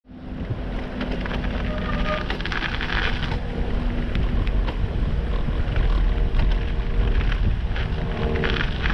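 Wind rumbling on the microphone of a moving camera, with tyre noise on a snow-dusted paved path and scattered small clicks and rattles; it fades in at the very start.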